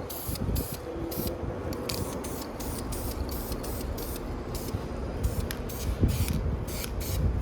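Aerosol spray-paint can spraying in a string of short bursts, about a dozen quick hissing passes, over a low rumble.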